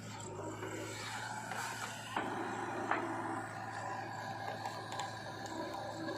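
Diesel engine of heavy earth-moving machinery running steadily, with two sharp knocks about two and three seconds in.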